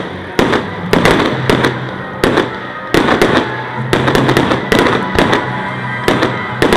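Aerial fireworks bursting in quick succession: a rapid string of sharp bangs, about three a second, with crackling between them.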